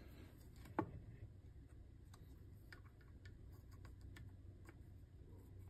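Near silence with one sharp click about a second in, then a few faint ticks: a pencil marking a line on a wooden muzzleloader stock, run along the edge of calipers.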